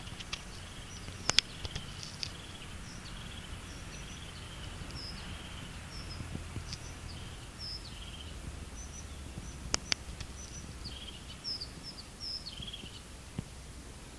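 Small songbirds chirping: short, high, thin notes and brief warbling phrases scattered throughout, over a low steady rumble. Sharp clicks come about a second in and twice close together near ten seconds in.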